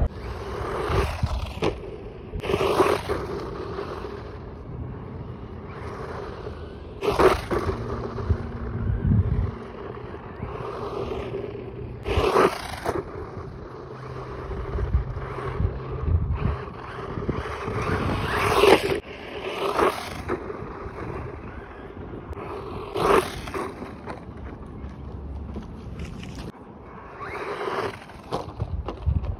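RC monster truck driving on a dirt jump track, its tyres scraping and spraying loose dirt in about eight loud passes, each swelling and fading within a second or two.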